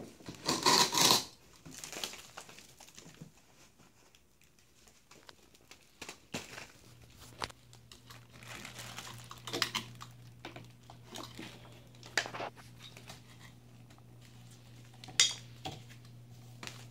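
Black plastic garbage bag crinkling and wet, crumbly wall facing rustling and tearing as it is handled, in sharp irregular bursts, the loudest near the start. The facing is peeling off the brick from moisture damage and mold. A steady low hum comes in about seven seconds in.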